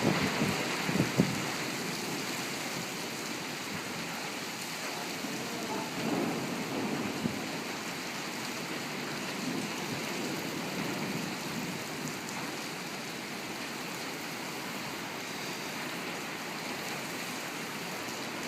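Torrential rain pouring down in a steady, dense hiss. There are a few brief louder low surges about a second in and again around six seconds.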